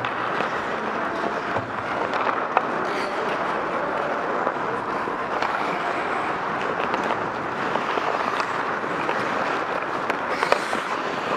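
Ice hockey skate blades scraping and carving the ice as the camera wearer skates, a steady hiss with a few sharp clicks.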